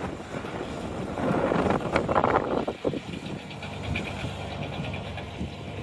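Wildfire burning through roadside brush: a steady rushing roar of flames and wind, with crackling and popping throughout. It swells for a second or so near the middle, and a quick run of sharp crackles follows.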